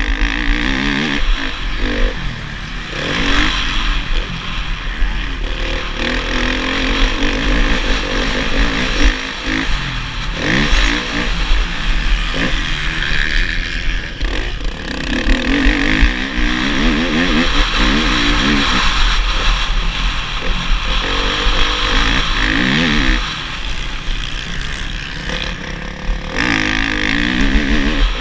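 Motocross bike engine heard from the rider's helmet camera, revving up and falling off again and again as it accelerates out of corners and shifts, over a constant low wind rumble on the microphone.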